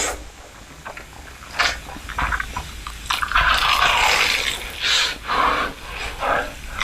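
Close-miked eating: irregular bites and chewing sounds, denser in the second half.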